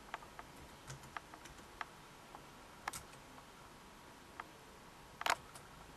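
Laptop keyboard keys tapped slowly and unevenly: a scattering of soft single clicks, with two louder taps about three and five seconds in.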